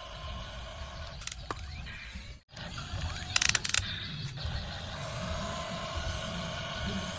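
Small geared mechanism of a plastic toy RC vehicle whirring and clicking, with a short cluster of sharp clicks about three and a half seconds in. The sound drops out briefly about two and a half seconds in.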